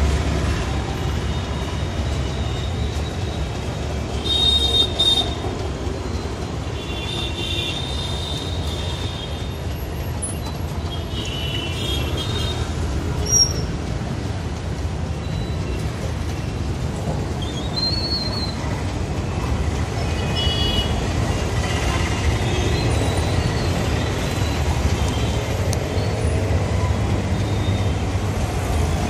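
Steady roadside traffic rumble, with short high squeaks every few seconds.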